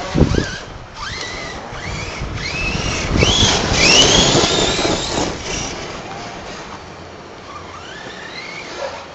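Radio-controlled off-road car's motor whining in repeated rising sweeps as the car accelerates, loudest about midway, then fading as it moves off. A few knocks come right at the start.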